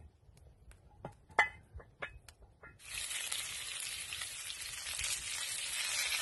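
Scattered clicks and a sharp knock, then from about three seconds in chicken pieces sizzling steadily as they fry in a cast-iron pan over a wood fire.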